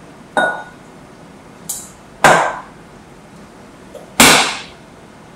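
Three sharp clanks of a metal ladle against a stainless steel pan, about two seconds apart, the first with a brief ringing tone and the last two the loudest, plus a lighter tick between the first two.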